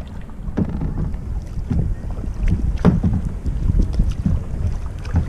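Wind buffeting the microphone, with kayak paddle blades dipping and splashing in irregular strokes; the loudest splash comes about three seconds in.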